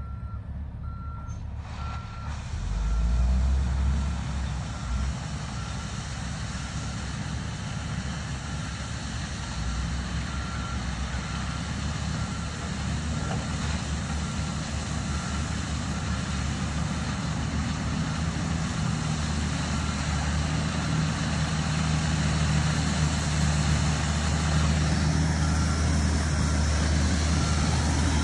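A dump truck's backup alarm beeping steadily while it reverses, over the low rumble of heavy engines. The engine sound gets louder as the truck comes closer.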